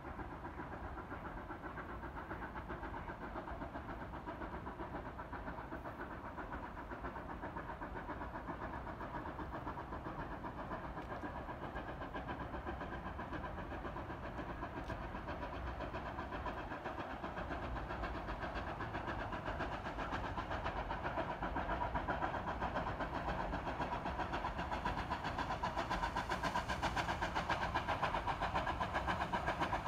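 Distant narrow-gauge steam locomotive No. 482, a K-36 2-8-2, working as it pulls out. Its exhaust blends into a steady rushing sound that grows louder over the last ten seconds as the train approaches.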